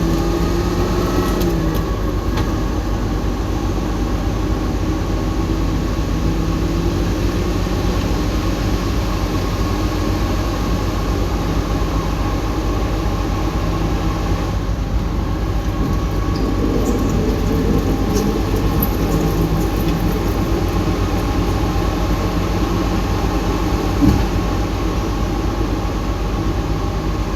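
Komatsu D68ESS bulldozer's diesel engine running steadily under load, with a single short knock near the end.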